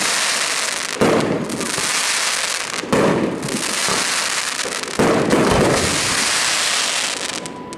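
Fireworks bursting: three sharp bangs about two seconds apart, each followed by a long dense crackling hiss. The sound dies away near the end.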